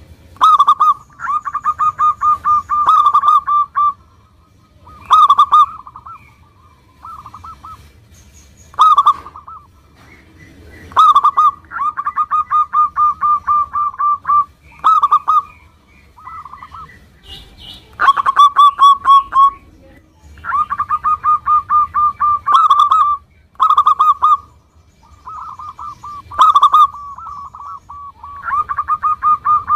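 Zebra dove (perkutut) singing: about a dozen phrases of quick, rippling coos at a steady pitch, separated by short pauses.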